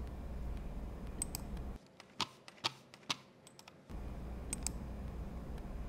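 Computer keyboard and mouse clicks: a handful of separate sharp taps, the loudest three close together in the middle, over a steady low background hum that drops out for about two seconds.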